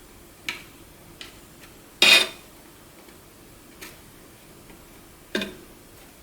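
Hard objects being handled close up: about five short clicks and knocks spread over several seconds, the loudest a brief clink about two seconds in.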